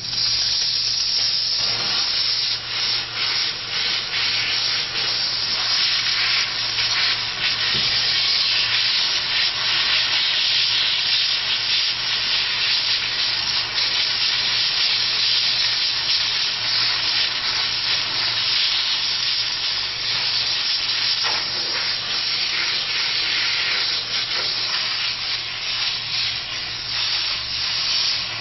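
Steam cleaner nozzle blasting steam, a loud steady hiss that starts abruptly.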